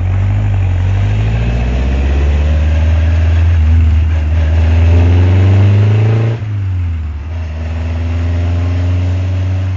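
Lotus Seven's engine pulling hard, its pitch rising for about six seconds. The revs drop sharply about six and a half seconds in, then climb again.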